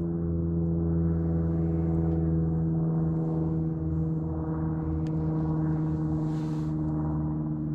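A steady low hum with overtones, holding one unchanging pitch: a machine running continuously.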